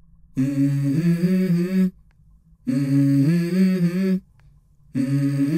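Background music: a low hummed vocal phrase heard three times, each stepping up in pitch partway through, with short pauses between.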